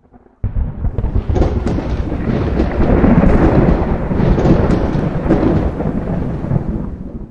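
Cinematic logo-intro sound effect: a deep, noisy rumble that starts about half a second in and fades out near the end.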